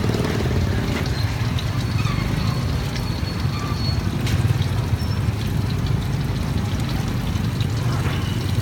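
Food deep-frying in a large wok of oil: a steady hiss of bubbling oil over a steady low rumble, with a light metal click of tongs about four and a half seconds in.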